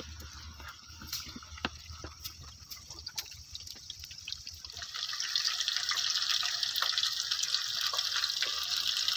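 Starch-coated ribs frying in hot oil in a pan: scattered pops and crackles at first, then from about five seconds in a loud, dense sizzling hiss as the pieces fry.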